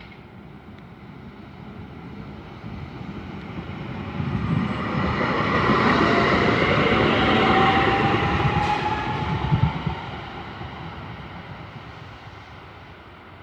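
Tatra KT4D articulated tram passing by: the rumble of its wheels on the rails builds, peaks with a thin whine rising slightly in pitch and a sharp click, then fades away.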